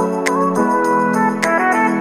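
Background music: sustained chords over a steady ticking beat.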